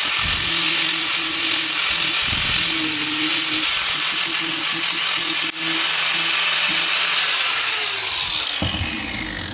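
Angle grinder with a flap disc grinding the steel edge of a chisel, a steady loud hiss. Near the end it is switched off and its whine falls in pitch as it spins down.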